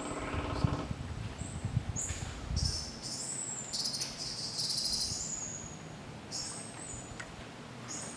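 Forest birds calling: a short low call at the start, then a run of high-pitched chirps and whistles with a rapid, buzzy high trill near the middle. A low rumble runs under the first three seconds.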